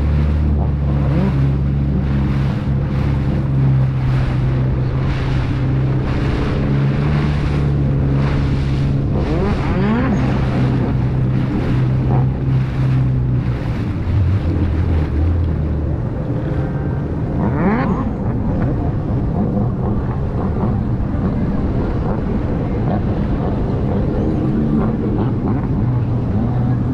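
Motorboat engine running steadily under way, with wind and water noise. The engine note drops about fourteen seconds in.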